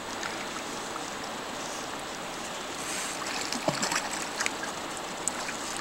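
Steady rush of river water, with a hooked chinook salmon thrashing and splashing in the shallows at the bank from about three seconds in.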